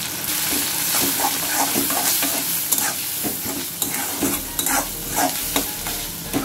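Onions, tomatoes and spices sizzling in hot mustard oil in a steel kadai, stirred with a steel spatula that scrapes repeatedly across the pan.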